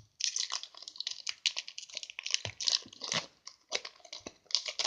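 Foil Pokémon booster pack wrapper crinkling and crackling in the hands as it is opened.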